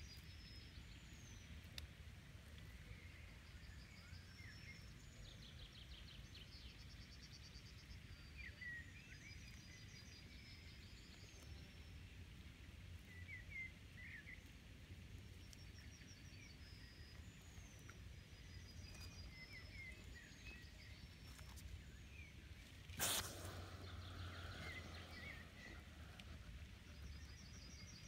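Faint birdsong, short chirps and trilled phrases repeating every few seconds, over a low outdoor rumble. A single sharp knock comes about two-thirds of the way through.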